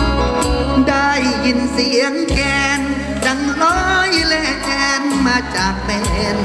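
Amplified Isan luk thung backing music with a steady beat and bass, and a wavering melodic lead line over it.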